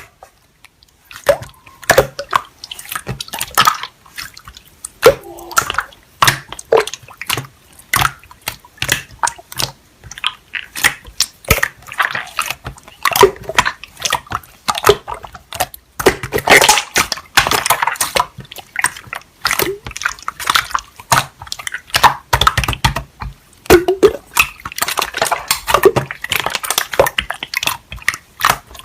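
Slime being pressed and poked, making a dense, irregular run of sticky clicks and wet pops, several a second.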